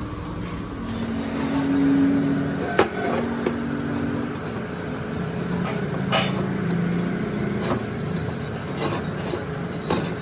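Scattered sharp metal knocks and clinks from work on a motorcycle wheel hub, about half a dozen, over a steady low hum that shifts in pitch.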